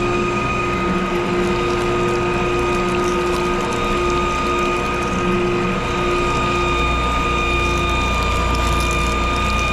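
Power pipe threading machine running steadily, its motor and gears turning the pipe against the die to cut threads, with cutting oil pumped over the pipe. A constant mechanical whir with a few steady tones.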